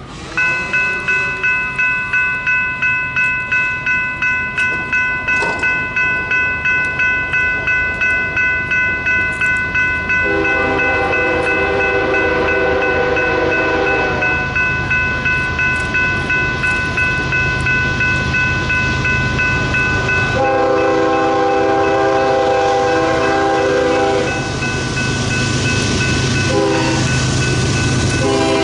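Union Pacific 1983's diesel locomotive horn sounds a chord in a long, long, short, long pattern, the grade-crossing signal, with the last blast just beginning at the end. A bell rings rapidly, about three strikes a second, underneath, while the locomotive's engine rumbles low and steady.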